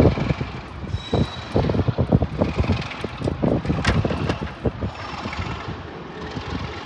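A train moving through the station, its rumble and clatter mixed with wind buffeting the microphone. The noise is heaviest over the first four seconds and eases after.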